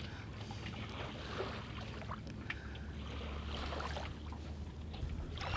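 Faint steady low rumble of outdoor background noise at the water's edge, with a few light knocks.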